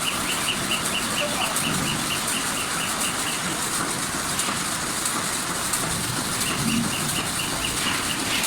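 CNC flanging machine working a bell-mouth flare: a steady hiss of machine noise with a rapid high chirping, about seven a second, that stops for a couple of seconds in the middle and then starts again.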